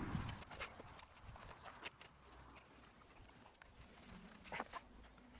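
Faint, scattered clicks and knocks of a folding camp bed's metal frame being handled and set up on grass.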